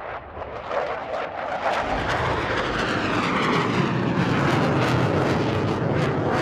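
Bomber aircraft engines growing steadily louder as the plane approaches, a dense noise with a slight downward glide in pitch as it comes near.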